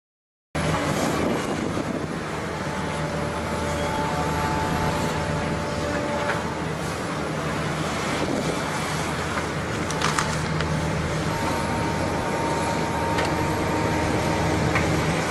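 Heavy diesel engines of earthmoving machines running steadily, starting abruptly after half a second of silence.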